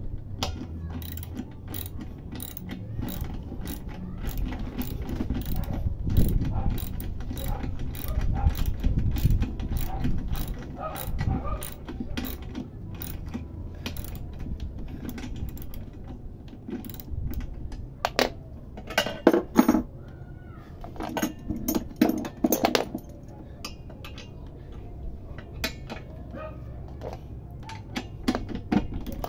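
Socket ratchet wrench clicking in a steady run of short strokes as a wheel nut is tightened, with a few louder metal clanks in the second half.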